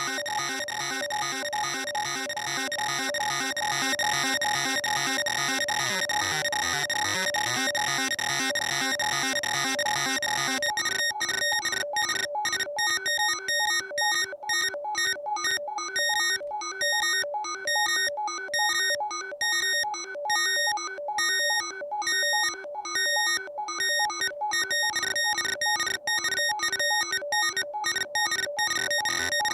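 Electronic music with a fast, even pulse and steady high tones. From about ten seconds in it turns choppy, cutting in and out in short rhythmic stabs.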